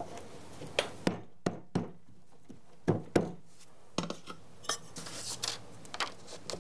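Irregular light clicks and clinks, about ten of them, as ceramic wall tiles and small plastic tile spacers are handled and set against the countertop edge.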